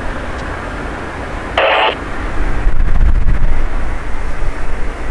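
Steady rumble of a jet airliner mixed with wind noise on the microphone, growing louder about halfway through. A brief burst of radio squelch cuts in after about a second and a half.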